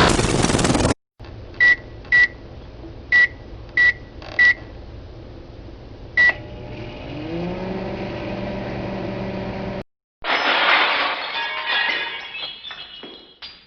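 Microwave oven keypad beeping six times, then the oven starting up: its hum rises in pitch and settles into a steady running sound before cutting off. About ten seconds in comes glass shattering, with pieces tinkling as it dies away.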